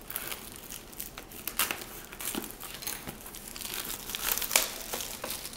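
Wrapper of a baseball card pack being torn open and crinkled by hand, an irregular run of crackles with the loudest crinkle about four and a half seconds in.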